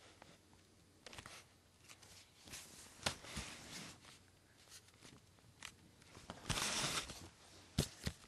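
Scattered rustles, taps and clicks of movement close to the microphone, with a louder rustle lasting about a second near the end and two sharp clicks just after it.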